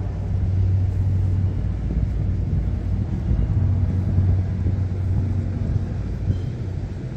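Steady low engine rumble with a constant deep hum.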